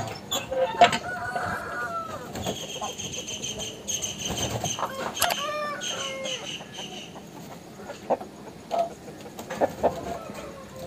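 Chickens clucking, with a long rooster crow held on one high note through the middle. A few sharp knocks are the loudest sounds, one right at the start and several near the end.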